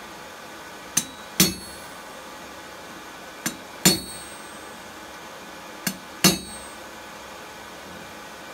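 Hammer striking a handled punch to drive the slug out of a hot steel bar over a steel block standing in for a pritchel hole. Three pairs of blows, each a light tap followed by a heavier blow with a short metallic ring.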